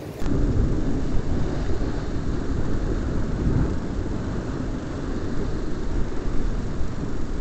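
Heavy, steady wind rumble buffeting the microphone, mixed with the sea washing against the rocks.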